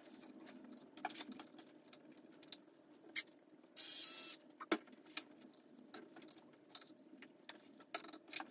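Scattered small clicks and taps of plastic and screw hardware being handled, with a cordless drill-driver spinning briefly for about half a second around four seconds in.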